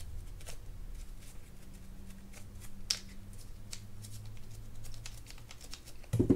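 Toothbrush scrubbing the shaft of a spinning reel's removed handle: soft scratchy brushing with a few sharper ticks, over a steady low hum. A short low thump near the end.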